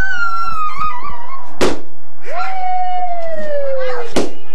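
Two sharp balloon pops, about two and a half seconds apart, amid long squealing, whooping voices that slide down in pitch.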